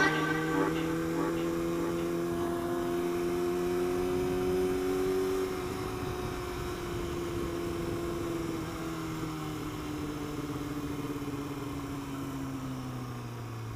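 Sport motorcycle engine running at a steady cruise; its pitch rises a little for the first few seconds, then falls slowly as the bike rolls off and slows, and it grows gradually quieter.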